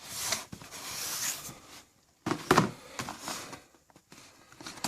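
Rustling and scraping of a shoebox and its packing paper being handled, in two stretches of a second or two each.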